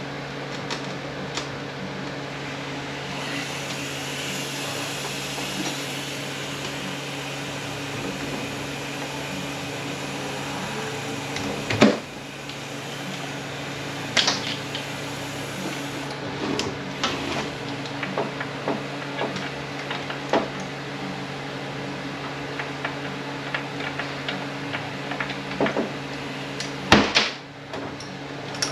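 Hand tools and metal transmission parts being handled on a bench: scattered light clicks and knocks, with two louder metal knocks, one near the middle and one near the end, over a steady background hum.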